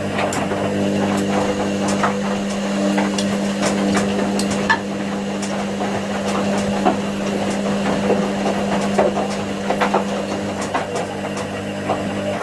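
Washing machines running a cotton wash: a steady motor hum with irregular clicks and knocks from the laundry tumbling in the drums.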